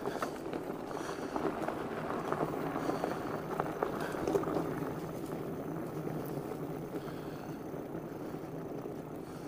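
E-bike tyres rolling over a gravel and dirt towpath: a steady crunching crackle of grit under the tyres.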